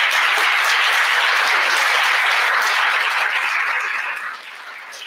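Audience applauding, a steady clapping that dies away over the last second or so.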